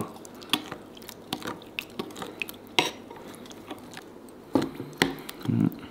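A metal spoon stirring runny chẩm chéo chili dipping sauce, thinned with chicken broth, in a glass bowl. The spoon clinks against the bowl in irregular light taps, with a brief low hum near the end.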